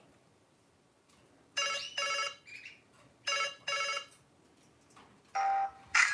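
LG KP500 (LG Cookie) mobile phone playing a ringtone: short electronic melody tones in pairs, about a second and a half apart, then a single tone and a louder phrase starting near the end.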